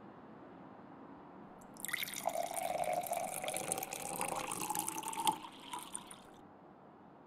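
Liquor poured from a glass bottle into a ceramic mug. It starts about two seconds in and runs for about four and a half seconds, its pitch rising a little as the mug fills, then stops.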